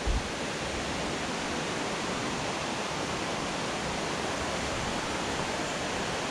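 Steady, even rushing noise, like running water, with a couple of low thumps right at the start.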